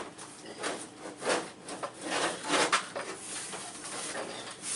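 Microwave/convection oven being pushed up into its wooden cabinet opening, its case scraping and rubbing against the wood in irregular bursts, loudest from about one to three seconds in.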